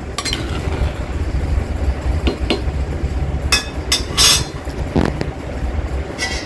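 Metal spoon knocking and scraping against a cooking pot while stirring fish curry, a few sharp clinks over a steady low rumble.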